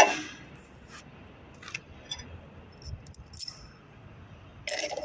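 Small metal parts clinking against metal: a sharp ringing clink at the start, a few faint light clicks, then another short run of clinks near the end.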